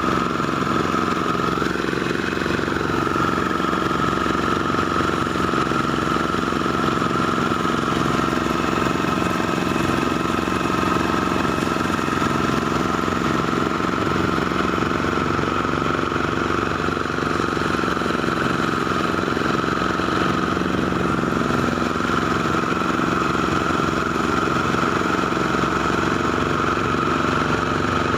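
Engine-driven rice threshing machine running steadily at constant speed, with a steady high whine over the engine's drone.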